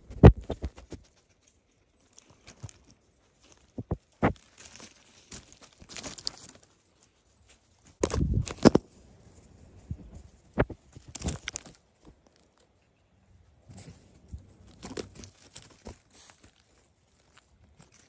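Scattered knocks, scrapes and rustles close to the microphone of a phone lying on the ground, coming in short bursts with quiet gaps between.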